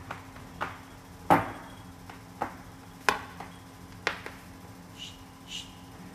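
Persian longhair cat pawing at a door while standing on her hind legs, her paws striking it in sharp, irregular knocks, five or so, one much louder than the rest. Two short high squeaks come near the end.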